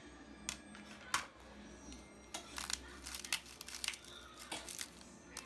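Scattered light clicks and clinks of dishes and utensils being handled, a dozen or so irregular knocks, over soft background music.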